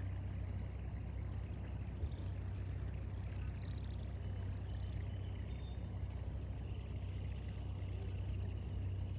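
Steady low background rumble with a faint, steady high whine, and a single soft knock about two seconds in.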